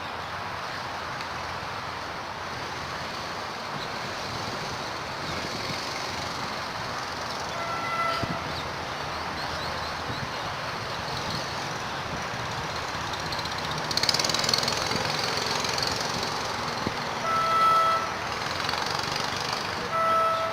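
Steady road traffic noise, with a short vehicle horn toot about eight seconds in and two more near the end, and a brief burst of hiss about two-thirds of the way through.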